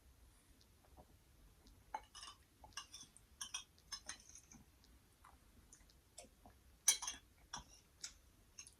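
Faint, scattered clinks and clicks of cutlery against dishes while someone eats, the sharpest one about seven seconds in.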